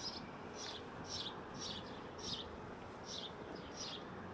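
A small bird chirping over and over: short high chirps, each falling in pitch, about two a second, over a faint steady background hum.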